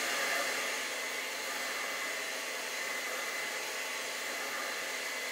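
Handheld hair dryer blowing steadily, held close over wet acrylic paint to dry it: an even rush of air with a faint high whine.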